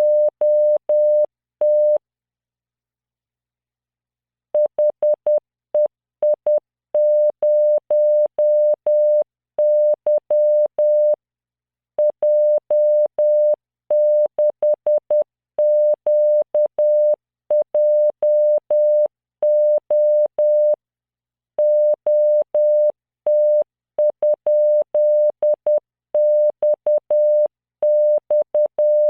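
Morse code sent at 10 words per minute as a pure 600 Hz computer-generated tone, keyed in short dots and longer dashes that spell random five-character practice groups. The keying stops for about two and a half seconds, starting about two seconds in.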